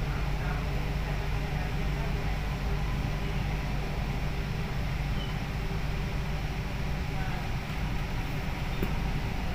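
Kolkata Metro train running between stations: a steady rumble of the moving train, with faint steady tones over it, heard inside the carriage.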